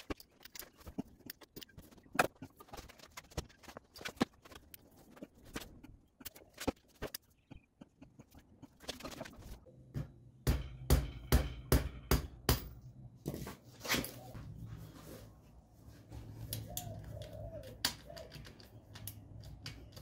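Hand tool clicking and knocking on the oil drain bolt under a Honda CB250 Nighthawk's engine, in irregular taps with a faster run of clicks about halfway through. The bolt is stuck fast and starting to strip.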